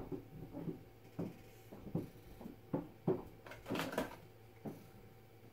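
Handling noise at a workbench: a string of light knocks and clicks as a glued 3D-printed plastic part and its clamp are set in place, with a short scraping rustle against a cardboard box just before four seconds in.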